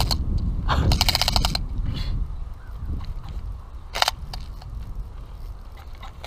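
Cheap spinning reel being cranked, giving a rapid rattling clicking in short bursts: one about a second in, and a single sharp click about four seconds in. It is a rough-running reel that the angler is showing off for how badly it sounds.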